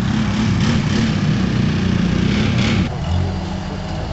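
Rock-crawling buggy engine running and revving unevenly, its pitch wavering as it crawls over rocks. A little under three seconds in, the sound cuts to another buggy's steadier, lower engine note.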